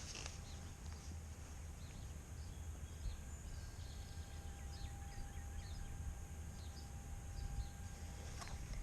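Faint outdoor ambience: a steady low rumble, with small high bird chirps scattered throughout.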